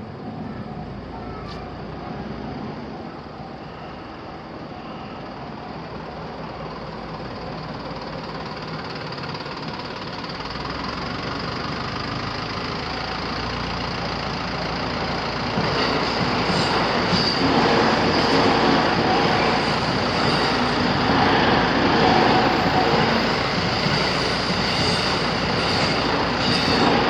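A train approaching along the track, its sound building steadily, then passing loudly from about sixteen seconds in with a run of rumbling and repeated wheel clatter.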